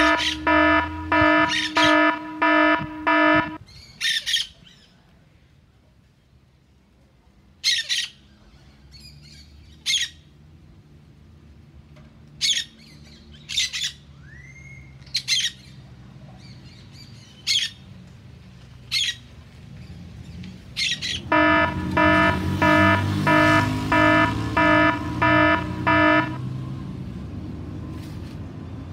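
Short, harsh bird squawks repeated every second or two, one of them rising in pitch, from a parrot-type bird. A loud electronic beeping, about three beeps a second, is the loudest sound at the start and again in a longer run near the end, over a low engine rumble.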